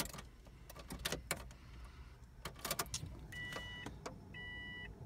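Ignition key of a 2004 Subaru WRX being cycled to prime a newly fitted fuel pump: several sharp clicks from the key and switches, then three short electronic beeps about a second apart.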